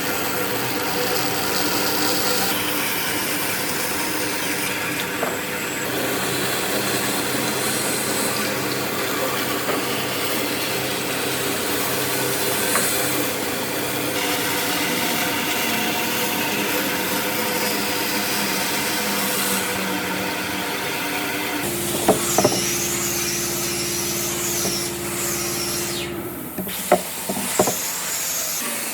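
A power tool working wood, a steady grinding, rubbing noise. About 22 seconds in it changes to a steadier hum with a wavering high whine, and a few sharp knocks follow near the end.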